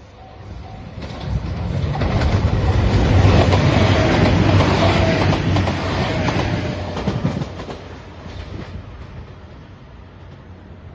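A JR Shikoku 2700 series diesel limited express, the yellow Anpanman train, passing close by: its engines and wheels on the rails build up over a couple of seconds, stay loud for several seconds and fade away. A level-crossing bell dings at the start.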